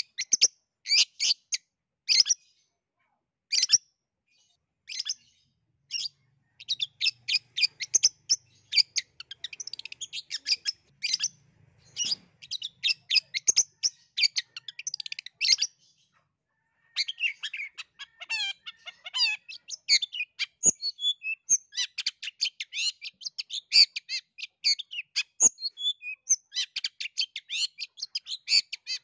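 Long-tailed shrike (cendet) singing. A few sharp single notes come first, then a fast, dense chatter of notes from about six seconds in. After a brief pause past the middle, the rapid chatter resumes with some quick warbled glides.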